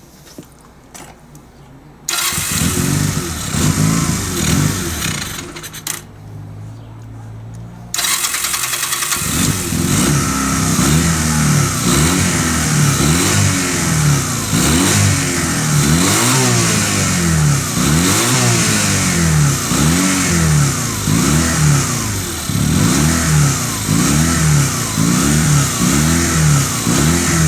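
Honda Rebel 250's air-cooled parallel-twin engine catching about two seconds in and then revved over and over, the throttle blipped up and down about once a second. It drops to a lower, steadier running for a couple of seconds in the middle before the revving picks up again. The bike has sat unused for years and starts hard and idles badly.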